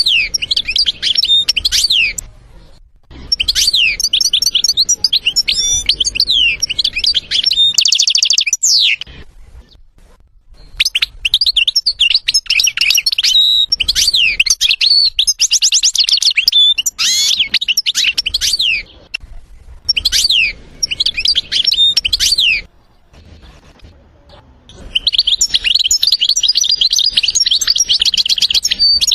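European goldfinch singing: bursts of quick twittering, swooping notes, separated by short pauses. The bursts are broken by fast trills, and near the end there is a long run of rapid repeated notes.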